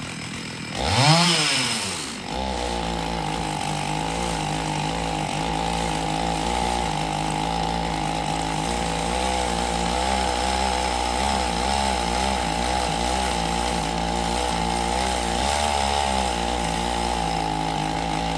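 Small chainsaw revs up and back down about a second in, then runs steadily at high speed as it is held into the base of a tree trunk to cut it.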